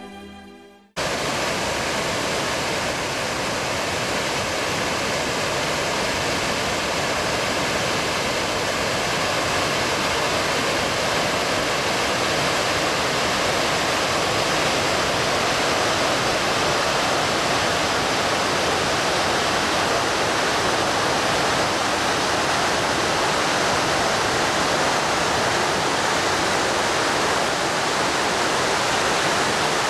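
The last of the music fades out, and about a second in a steady rush of water cuts in: a waterfall pouring and cascading over rock ledges into a river pool.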